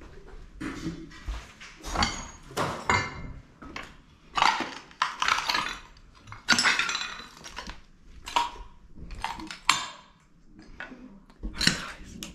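Footsteps crunching and scraping over rubble, flaking plaster and broken glass on a littered floor, with irregular clinks and clatters of debris underfoot.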